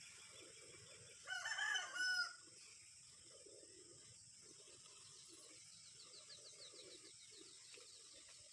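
A rooster crows once, about a second in, the call lasting about a second. Under it runs the faint, even rhythm of hand-milking, milk squirting into a steel pail.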